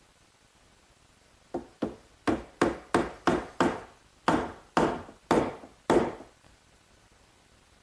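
About eleven sharp hammer taps on a wooden dowel, driving it into its hole to pin a mortise-and-tenon joint. They come in a quick run of seven, a short pause, then four more, each knock fading fast.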